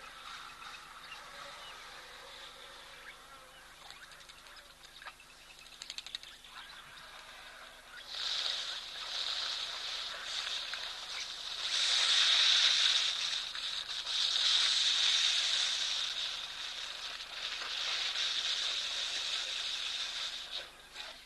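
Wild animal calls outdoors: a dense, high-pitched chorus that swells about eight seconds in and stays loud until near the end.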